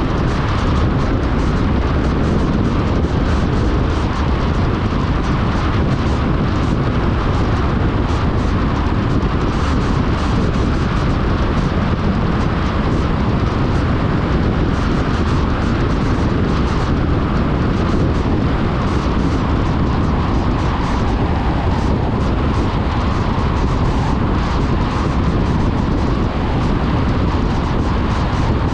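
Car driving along: a steady, unbroken rumble of engine, tyre and wind noise.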